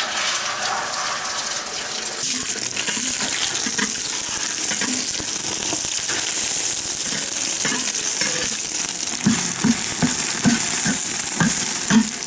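Beaten eggs poured into hot oil in a large iron wok, sizzling from the moment they land and frying steadily. From about nine seconds in, a spatula scrapes and knocks against the wok repeatedly as the eggs are stirred.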